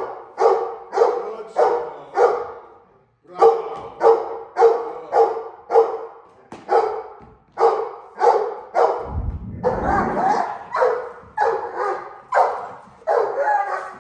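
Dogs barking hard and fast at a decoy during protection-training agitation, about two barks a second with a brief pause about three seconds in. A low thud about nine seconds in.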